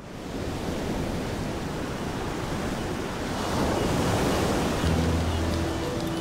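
Ocean surf breaking on a beach: a steady wash of waves that swells about four seconds in. Low sustained music notes come in near the end.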